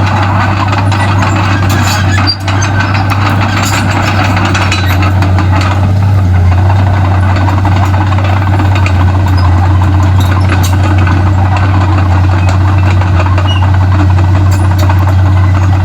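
Komatsu D31P crawler bulldozer's diesel engine running steadily, with scattered clicks and clanks over it; it grows a little louder about five seconds in.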